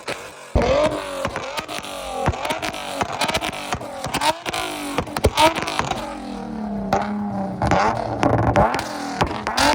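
Car engine revving hard again and again, its pitch sweeping up and falling back in quick repeated rises, with sharp cracks throughout.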